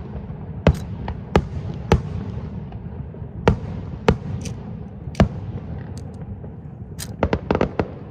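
Aerial fireworks bursting: sharp bangs at irregular intervals, roughly one a second, then a quick cluster of several near the end, over a continuous low rumble.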